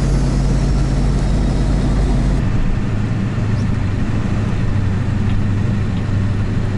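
7.3 L Power Stroke turbo-diesel V8 of an old Ford truck running steadily under load while towing a trailer. Its note drops to a lower pitch about two and a half seconds in.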